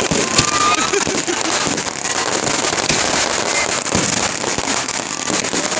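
Aerial fireworks going off: a dense, continuous crackling with sharp bangs now and then.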